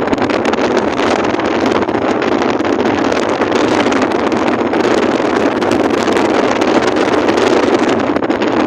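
Steady, loud rushing of wind on the microphone aboard a ferry at sea, with no tones or breaks.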